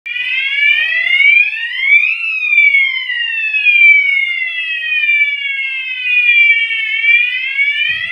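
Electronic fire alarm sounder wailing, sounded while an addressable fire alarm system is being tested. The pitch rises over about two seconds, falls slowly for about five, and starts rising again near the end.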